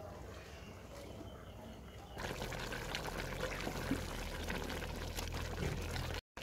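Rice and whole masoor lentils boiling hard in a large aluminium pot: a dense, steady bubbling and popping that starts suddenly about two seconds in.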